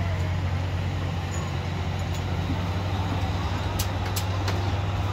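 Steady hum of a heavy machinery engine running nearby on a construction site, with a few sharp clicks about four seconds in.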